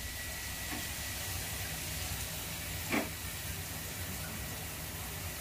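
Steady hiss of background noise with a low hum beneath it, and one short squeak about three seconds in.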